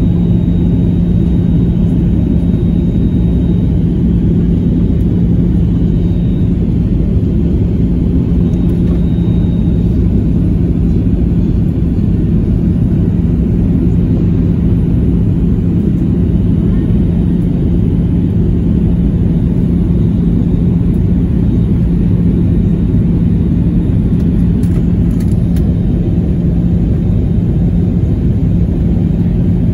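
Cabin noise of a Boeing 737-800 on approach, heard inside the cabin: the CFM56-7B turbofans and rushing air make a steady rumble with a constant low hum.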